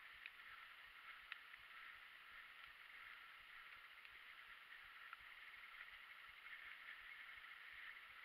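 Near silence: a faint steady hiss with a few light ticks.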